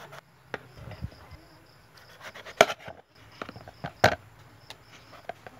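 Kitchen knife chopping a peeled bottle gourd into chunks, with a few sharp, irregular knocks as the blade cuts through and hits the plate beneath. The loudest knock comes about two and a half seconds in and another about four seconds in.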